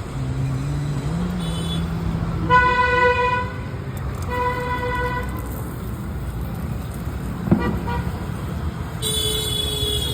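Road traffic with vehicle horns honking: two honks of about a second each a few seconds in, and another near the end, over a steady traffic noise. A vehicle engine rises in pitch at the start, and a single sharp click comes in the second half.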